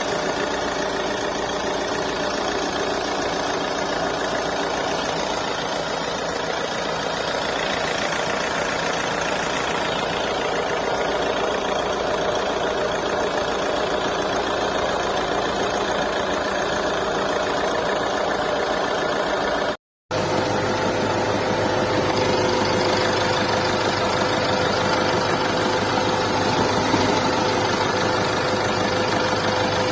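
Mahindra XUV300's 1.5-litre four-cylinder turbo-diesel engine idling, with a mechanical noise that the owner puts down to a compressor problem. A brief cut about two-thirds through, after which a steady whine sits over the engine sound.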